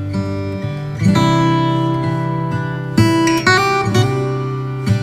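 Background music: an acoustic guitar strumming chords, with new chords struck about a second in and again around three seconds.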